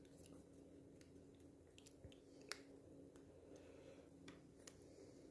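Near silence with a few faint, sharp clicks of a small plastic toy figure being handled in the fingers. The sharpest click comes about two and a half seconds in.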